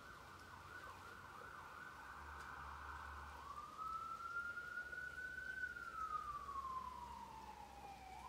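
Distant emergency-vehicle siren, first in a fast warbling yelp, then switching about three seconds in to a slow wail that rises, falls, and starts to rise again near the end.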